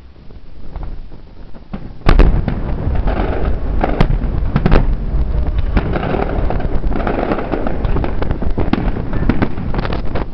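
Aerial fireworks shells bursting: a few scattered pops, then about two seconds in a loud bang opens a dense, continuous barrage of bangs.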